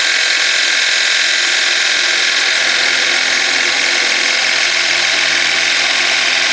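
End mill on a CNC-converted Optimum BF20L milling machine cutting aluminium plate, a steady, loud, high-pitched cutting noise with the spindle running.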